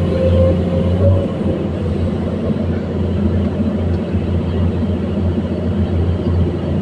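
Komatsu PC210-10 excavator's six-cylinder diesel engine running with a steady low rumble. A steady high whine over it stops a little over a second in.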